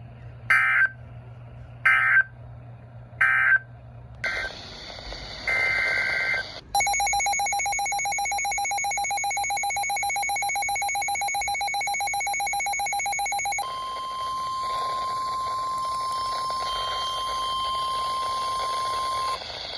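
Emergency alert broadcast tones. Three short screechy digital data bursts (SAME code) come about a second apart. Then a harsh, rapidly pulsing attention signal runs for about seven seconds and switches to a steady single beep-like tone near 1 kHz, the weather-radio alert tone, for about six seconds.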